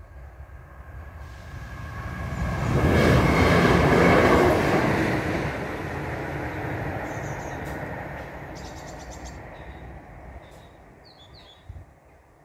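A train passing through the level crossing at speed: the rumble builds over a couple of seconds, is loudest around three to four seconds in, then slowly fades away. Birds chirp faintly near the end.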